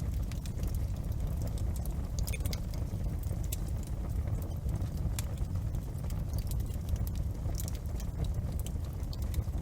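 Wood fire crackling in a fireplace: irregular sharp snaps and pops scattered over a steady low rumble of the burning logs.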